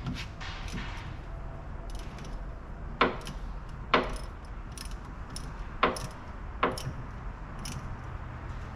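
Metal hand tools clinking on steel fittings while hydraulic port plugs are tightened on a forestry mulcher head: four sharp metallic clinks, about three, four, six and six and a half seconds in, with lighter ticking between.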